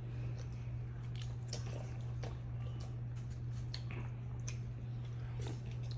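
A person eating spaghetti with a fork: wet chewing and squishing mouth sounds with scattered short clicks, over a steady low hum.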